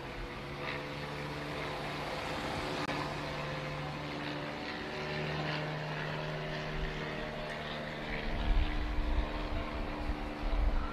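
Steady engine hum, with low rumbling buffets near the end.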